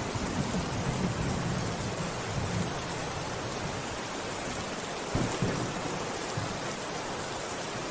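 Steady rain, with low rolls of thunder rumbling underneath.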